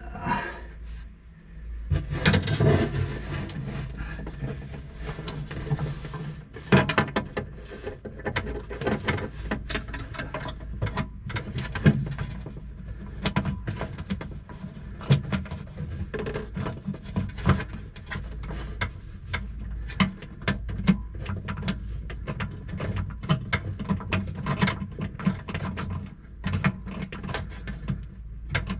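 Hand tools working metal fittings during a fuel shutoff valve install: irregular sharp clicks and small clinks, in short runs, over a steady low hum.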